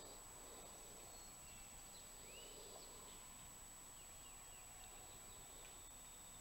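Near silence: faint dawn woodland ambience with a few soft, distant songbird chirps.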